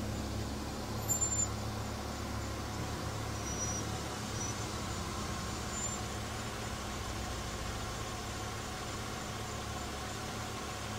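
A vehicle's engine idling with a steady low hum, with a few brief crackles about a second in.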